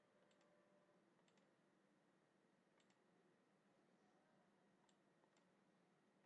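Near silence with faint computer mouse clicks, several in quick pairs, about six in all.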